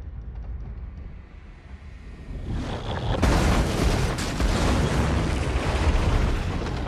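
Film crash sound of the derailed bullet train ploughing through buildings: a low rumble builds from about two and a half seconds in into a loud, dense crash of smashing masonry and debris that lasts to the end.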